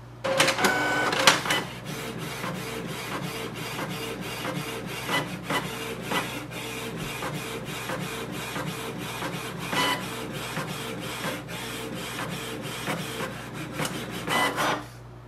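Canon Pixma TS3429 inkjet printer printing a page. It opens with a louder whir, then runs in a steady rhythm of short whirs and clicks as the print head passes back and forth, and stops after a last louder whir near the end.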